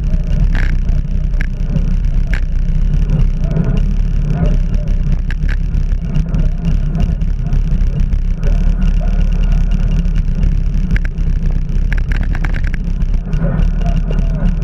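Wind rushing over the microphone of a camera on a moving bicycle: a steady low rumble, with a few light clicks and rattles now and then.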